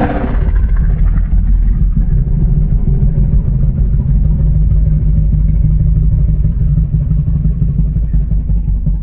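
Godzilla film sound effect: a deep, steady rumble, brighter and harsher at its sudden onset.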